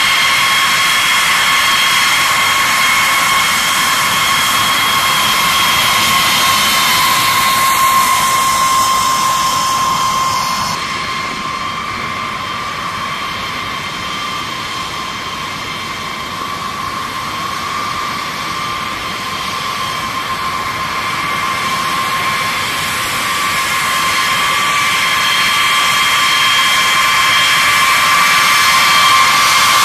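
B-52H Stratofortress's Pratt & Whitney TF33 turbofan engines running at taxi power: a steady high whine over a broad rush. The sound drops about eleven seconds in and builds again toward the end.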